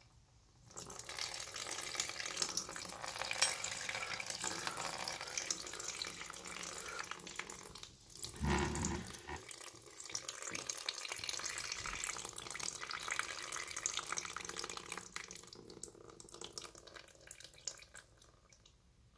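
Old engine oil mixed with water pouring in a stream from the drain hole of a Chevy 454 big-block's oil pan and splashing into a plastic drain pan. The pour starts about a second in and thins out near the end, with a brief low bump about halfway through.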